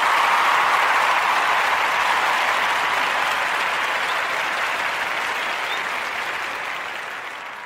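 Canned audience applause, a dense steady clapping that fades away near the end, played as a show-break sound effect.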